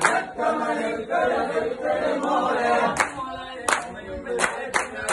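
A group of men singing together in a chant-like song, punctuated by sharp hand claps in unison.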